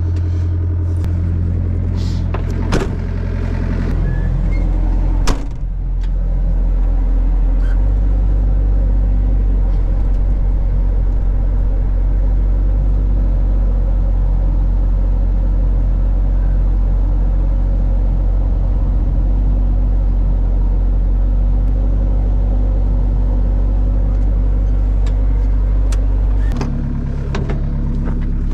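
A vehicle engine runs steadily with a low drone. Its pitch shifts in steps about 7 seconds in and again near the end, and a couple of sharp knocks come in the first six seconds.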